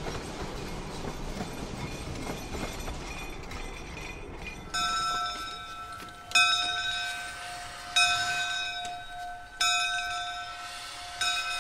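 A two-foot narrow-gauge passenger car rolling past with a low rumble of wheels on the rails. About five seconds in, a steam locomotive's bell starts ringing, one clang about every second and a half, each dying away before the next.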